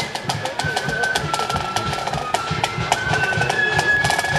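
Marching band playing: a high, held melody that steps from note to note over regular drum beats.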